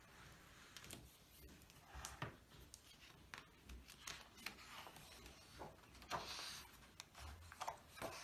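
Faint handling noise of a hardcover picture book being opened and its endpapers turned: scattered light taps and paper rustles, with a soft page-turning swish about six seconds in.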